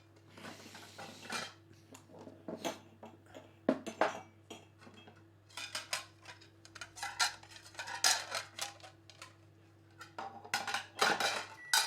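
Plates, pans and cutlery clattering and clinking in a kitchen as a meal is put together, over a steady low hum that cuts off near the end.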